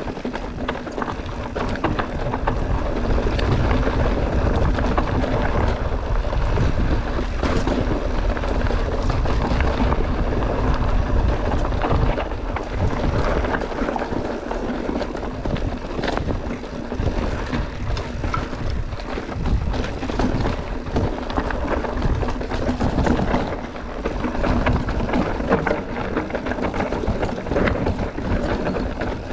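Mountain bike descending a rocky trail: wind buffeting the microphone over a constant clatter of small knocks from the tyres and bike running over rock and loose stones.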